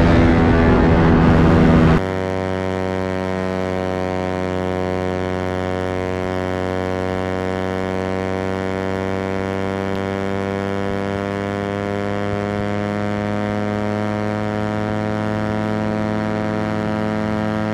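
Suzuki GSX-R150's single-cylinder engine held at high revs near top speed, a steady note whose pitch creeps slowly upward. For about the first two seconds it is louder, with a rush of noise over it. It then changes suddenly to a quieter, steadier engine note.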